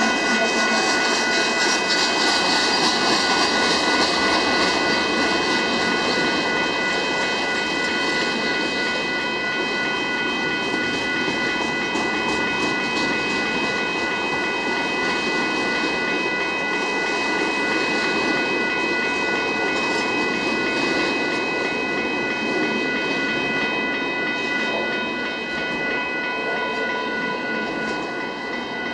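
Union Pacific double-stack container train rolling through a grade crossing: a steady rumble and clatter of freight car wheels on the rails. Steady high ringing tones, typical of the crossing's warning bell, sound over it.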